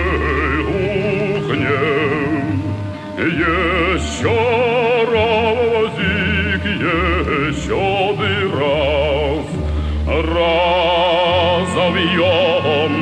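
Music: a voice sung in operatic style with wide vibrato, over a low bass line.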